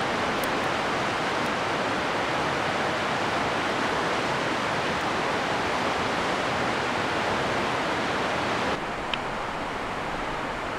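Steady rush of river rapids. About nine seconds in it drops abruptly to a slightly lower level, and a single small click follows.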